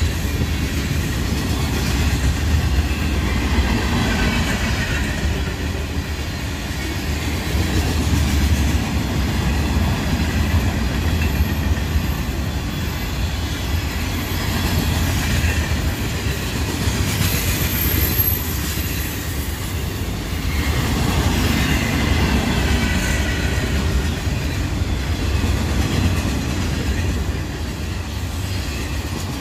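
Freight cars of a Union Pacific manifest train rolling past at speed: a steady heavy rumble with wheels clicking over the rail joints. A thin, high-pitched wheel squeal comes in briefly about halfway through.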